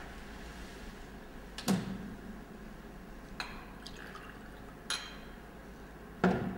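A drink being poured from a bottle into a glass, with several sharp clinks and knocks of glass on a table, the loudest near the end.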